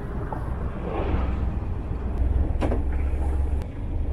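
A sailboat's engine running at low revs while its cockpit control lever is worked, with a sharp knock about two-thirds of the way through and a lighter click a second later.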